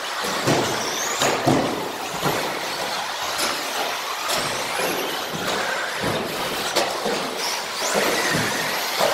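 Radio-controlled model buggies racing on an indoor carpet track. Their electric motors whine, rising and falling in pitch with the throttle, over a steady hiss of tyres on carpet, with frequent sharp knocks as the cars land jumps and hit the track-edge tubing.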